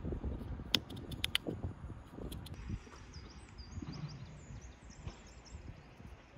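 Kitchen knife cutting slits into raw red potatoes, with a few crisp clicks in the first half. A small bird chirps a quick series of high notes around the middle.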